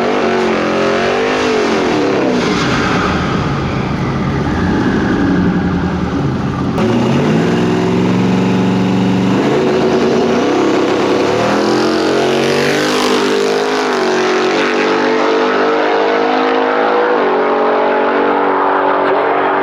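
Drag-racing cars at full throttle, engine pitch climbing and stepping back down through gear changes. The sound changes abruptly about a third of the way in as one run gives way to another.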